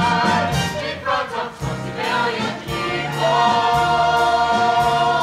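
Musical theatre ensemble singing in chorus over a pit orchestra, holding long sustained notes, with one long held note from about three seconds in.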